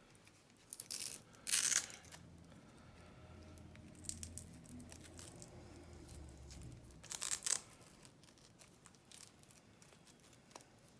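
Rustling and scraping handling noise from lock-picking tools and a padlock being handled, in short bursts about a second in and again around seven seconds in.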